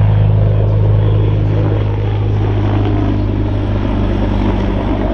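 Military aircraft noise from the demonstration: a steady, loud low drone with a strong hum, easing a little after about two seconds.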